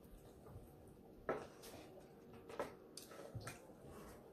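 Faint eating sounds: soft mouth noises and a few small clicks, the loudest about a second in.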